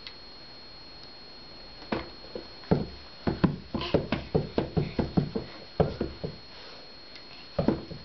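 A baby's heels and legs thumping on a carpeted floor as she kicks: a run of soft thumps, about four a second, starting about two seconds in, then a pause and a couple more near the end.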